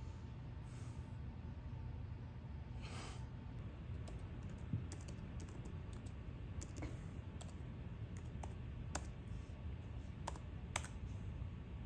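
Typing on a laptop keyboard: irregular key clicks starting about four seconds in, over a low steady hum.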